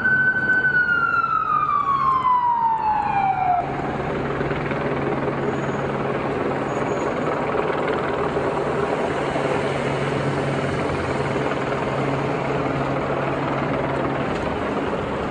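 Emergency vehicle siren wailing once, its pitch falling slowly before it cuts off suddenly about three and a half seconds in. After that comes a steady low engine hum with street noise.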